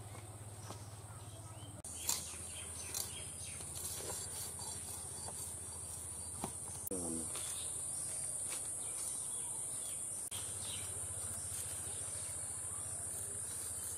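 Insects chirring steadily in one continuous high-pitched buzz, louder from about two seconds in, with a few sharp clicks and knocks scattered over it.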